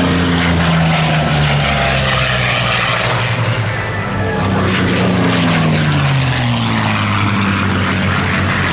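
Two low passes by WWII piston-engine fighters: a British-camouflaged warbird, then a P-51 Mustang with its V-12. Each engine note drops in pitch as the plane goes by.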